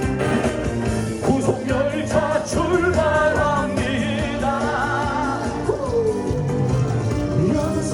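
Upbeat song with singing over an amplified band backing track, a parody protest song sung to a popular trot tune.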